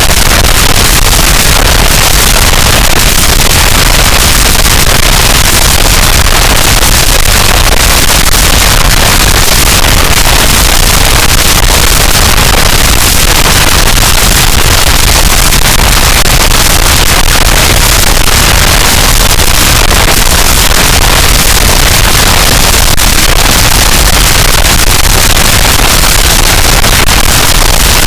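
Harsh noise wall: a dense, unchanging wall of loud distorted noise across all frequencies, with no rhythm, pitch or breaks.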